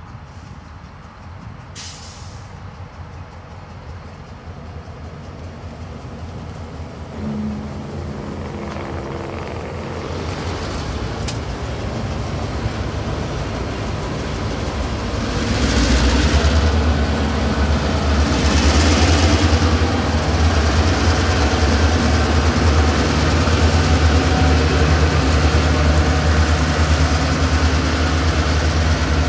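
Diesel engines of a freight train's lead EMD locomotives running as the train approaches and passes. Their low drone grows steadily louder and is loudest from about halfway in. There are short hisses near the start and twice a little after the middle.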